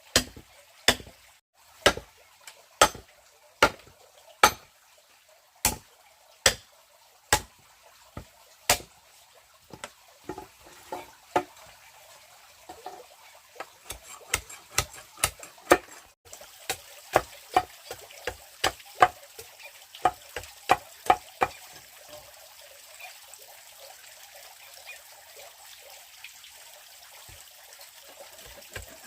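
Repeated sharp chopping strikes, about one a second and evenly spaced at first, then quicker and uneven, over a faint steady watery hiss.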